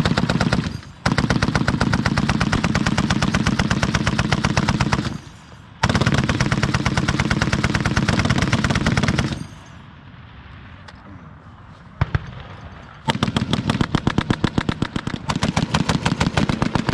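M2 .50 caliber heavy machine gun firing long bursts of rapid automatic fire, each lasting several seconds, with one lone shot in a pause before the last burst.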